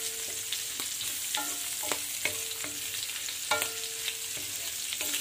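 Diced pork, onion and garlic sizzling in oil in a stainless steel wok as a wooden spatula stirs and scrapes them. The spatula knocks the pan about four times, each knock followed by a short ringing tone.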